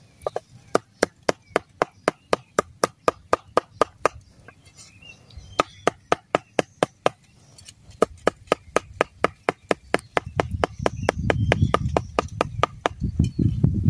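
A cleaver chops down onto a round wooden chopping board, mincing food in quick, even strokes of about four a second. The strokes pause briefly about four seconds in. A low rumble joins them from about ten seconds in.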